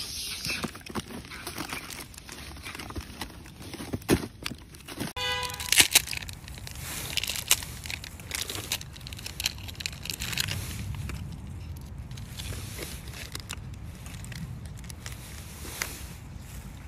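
Plastic snack wrappers and a cardboard box crinkling and tearing as a macaque rips into packaged bread, in sharp scattered crackles. About five seconds in the sound changes: a steady low rumble sets in, with more crackles of a plastic wrapper being handled, loudest just after the change.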